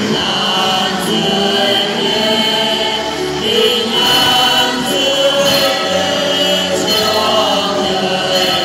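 Church choir singing, with long held notes.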